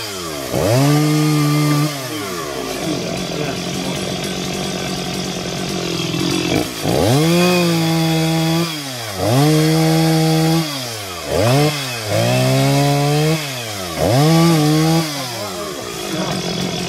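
Chainsaw engine revved to full throttle about five times, each burst held for a second or two before falling back, with a noisier stretch in the first half.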